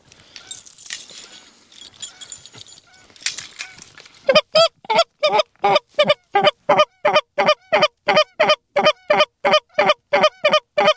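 Goose honks in a fast, very even string of about three a second, loud and starting about four seconds in, after a few seconds of faint noise.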